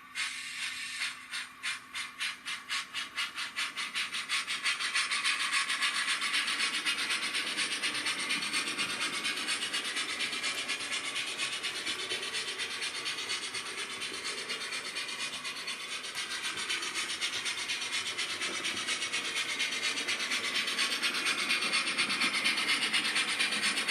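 Sound-fitted Rapido model of the steam locomotive Lion: its sound decoder plays hissy steam chuffs. The chuffs speed up over the first few seconds until they run together into fast, even chuffing as the loco runs on.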